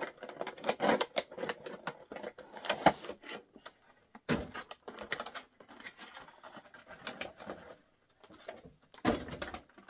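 Toy action-figure packaging being handled and opened: irregular crinkling and clicking, with a couple of sharper snaps about three and four seconds in.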